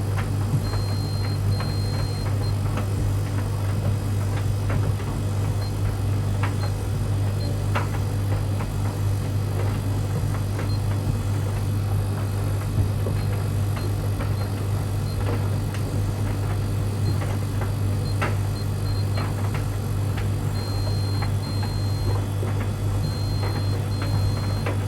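Tumble dryer running with a steady low hum, while a Beko Aquatech washing machine's control panel is worked: scattered clicks of the dial and buttons, and short high electronic beeps, in runs about a second in and again near the end.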